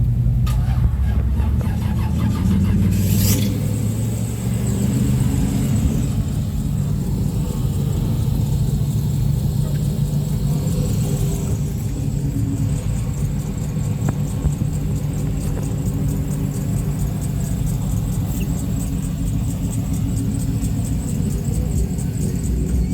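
Car engine running with a steady low rumble, with a brief hiss about three seconds in.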